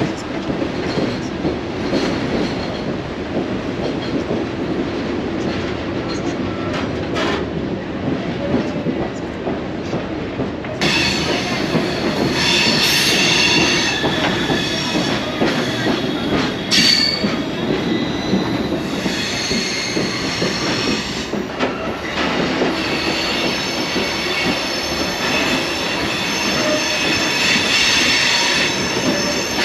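Passenger train running on steel rails, with a steady rumble of the wheels and cars. From about a third of the way in, a high-pitched squeal of the wheels against the rails comes and goes.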